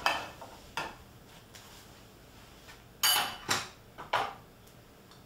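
Kitchen cookware clatter: a spatula, frying pan and plate knocking and clinking as an omelet is moved onto the plate. There are several sharp knocks with a little metallic ring, the loudest cluster about three seconds in.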